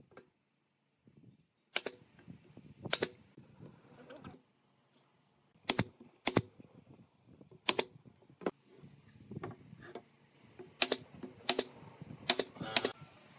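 Nail gun firing nails into pine boards, about ten sharp shots at uneven intervals, with the knock and rub of the wood being shifted between shots.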